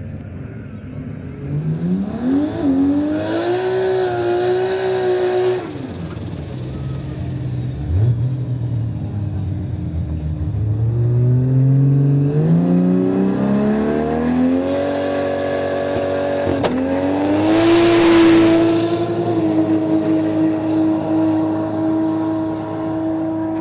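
Turbocharged Nissan RB30 single-cam inline-six in a drag car, revving and climbing in pitch in steps. About two thirds of the way through, a sharp crack comes just before a hard full-throttle run that rises and then holds at a steady high pitch.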